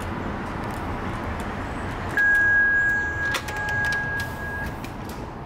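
City street traffic noise, then a building door-entry keypad sounds a steady electronic beep tone for about two and a half seconds as the door is released. A sharp latch click comes partway through the tone, as the glass entry door is pulled open.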